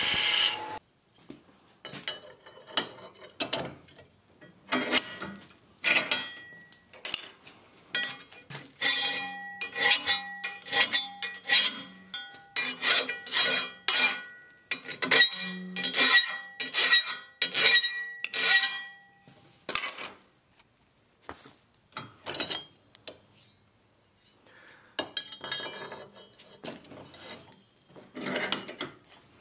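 Flat hand file rasping across the edge of a steel lawnmower blade clamped in a bench vise, in repeated strokes about one or two a second, some leaving a ringing tone in the blade. A belt grinder running against the steel cuts off under a second in.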